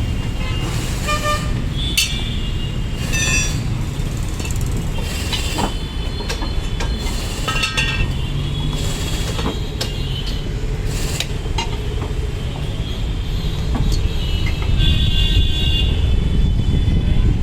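Busy street traffic with a steady rumble and vehicle horns honking now and then, one longer honk near the end, plus a few sharp clicks.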